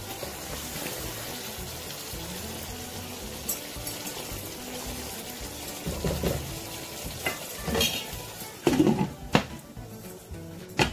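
Creamy chicken curry sizzling steadily in a pan. About six seconds in, a spatula starts stirring and scraping through it, with a few knocks against the pan.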